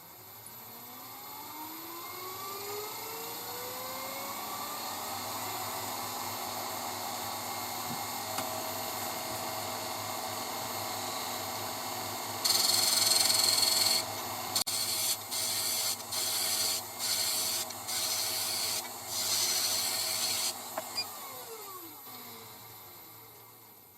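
Wood lathe motor spinning up, running steadily, then a turning tool cutting into the spinning wood blank: one long cut, then about six short cuts. The lathe then winds down, its pitch falling.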